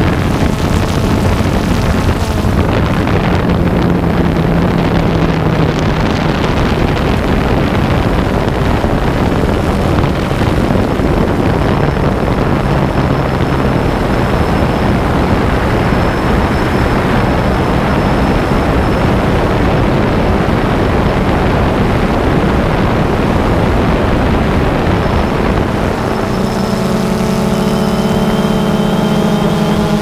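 DJI Phantom 2 quadcopter's motors and propellers, heard from its on-board camera as a steady loud whirring with a low hum. Near the end, several steady pitched tones come in over it.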